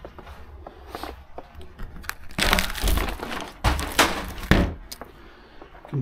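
Footsteps crunching through fresh snow, a short run of steps in the middle that is the loudest thing heard.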